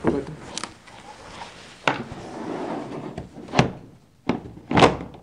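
Sliding seat of a single rowing scull pushed along its slide rails, its small wheels rolling with a soft rumble, then four sharp knocks in the second half as the seat is worked on the track.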